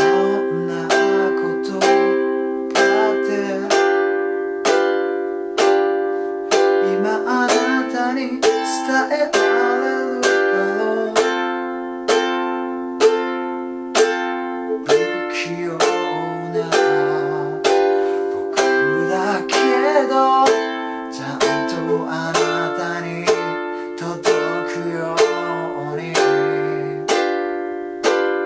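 Ukulele strumming simple chords (Dm, G7, C, Am) in a steady pattern, about two strokes a second, with a man singing the melody along with it.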